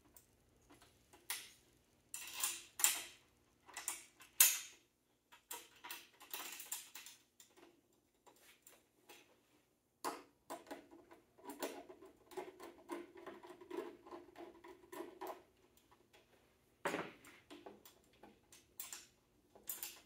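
Clicks and knocks of metal parts as the chromed steel handle of a Hoover commercial upright vacuum is fitted onto its base, with several sharp knocks in the first few seconds. About halfway through comes a few seconds of rubbing and scraping, then another knock.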